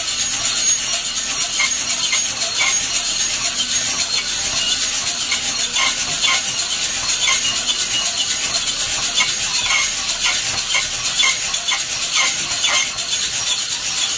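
Coffee beans tumbling and rattling inside a hand-cranked wire-mesh drum roaster as it turns: a steady, dense rattle of many small clicks.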